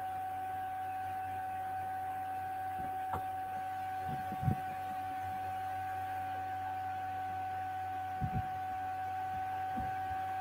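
A steady, high electronic tone over a low hum, with a few faint soft knocks now and then.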